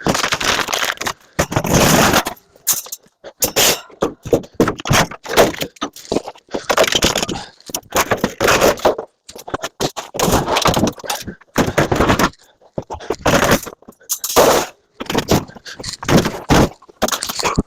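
Scrap metal clattering and scraping as pieces are tossed and dragged, a long irregular run of sharp crashes and rattling scrapes with short pauses between.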